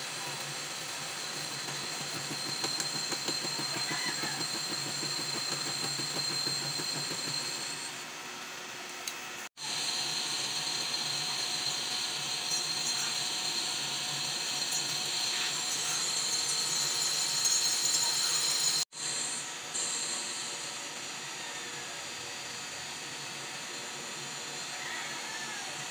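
Metal lathe running as it turns a hydraulic cylinder piston: a steady machine noise with a high, even whine. It cuts out abruptly for an instant twice, at about a third and two-thirds of the way through.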